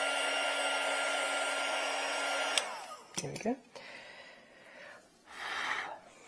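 Handheld heat gun blowing steadily with a motor whine, shrinking heat-shrink tubing over a soldered wire joint. It cuts off with a click about two and a half seconds in and the whine falls away, followed by light rustling of the wires being handled.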